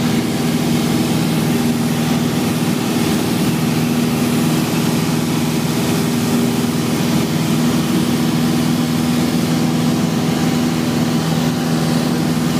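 Light aircraft's engine running steadily in cruise flight, heard from inside the cabin as a constant drone with a steady low hum over rushing air noise.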